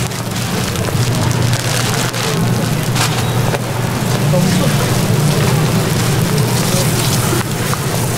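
Egg-and-vegetable patties sizzling on a hot flat-top griddle, a steady crackling hiss, with a low hum underneath and a few light taps.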